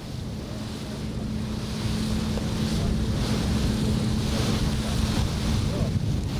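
A boat's engine running with a steady drone, with wind buffeting the microphone and water rushing along the hull. It grows louder over the first two seconds, then holds steady.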